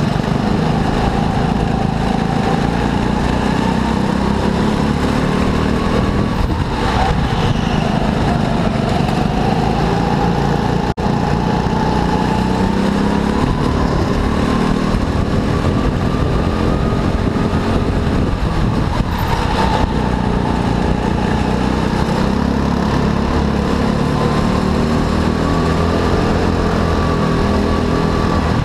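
Go-kart engine running hard through a race, its pitch rising and falling again and again as the kart accelerates and slows.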